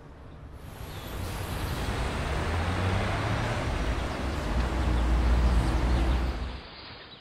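City road traffic: cars and heavy vehicles passing, with a deep engine rumble. The noise swells in over the first couple of seconds, is loudest a little past the middle, then fades out about six and a half seconds in.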